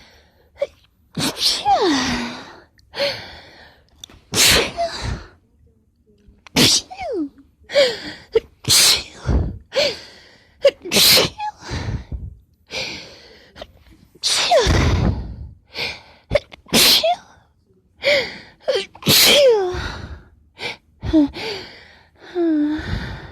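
A person sneezing over and over in a long fit, roughly one sneeze every two seconds. Each sneeze is preceded by a voiced in-breath that slides down in pitch.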